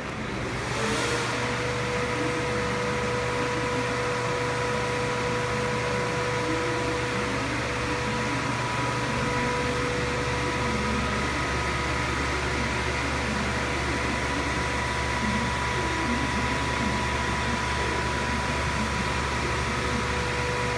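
TIG welding arc on stainless steel pipe: a brief high hiss as the arc strikes about a second in, then a steady buzzing hum under an even hiss.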